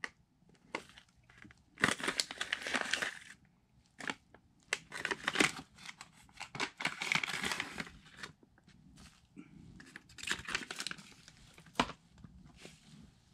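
Bursts of rustling and crinkling, each a second or two long, coming about half a dozen times with quiet gaps between them.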